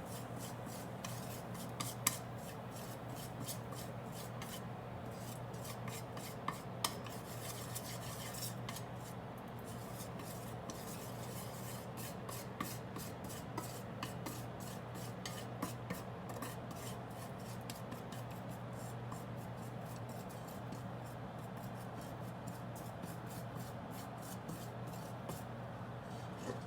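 Chili frying in hot olive oil in a pot: a steady sizzle with fine, irregular crackles, a few sharper clicks, and a constant low hum underneath.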